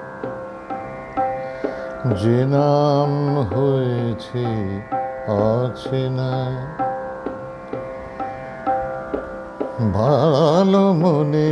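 Male voice singing a khayal in raga Nupurdhwani: a few ornamented phrases with wide, wavering glides and shakes in pitch, over a steady drone and a light rhythmic accompaniment.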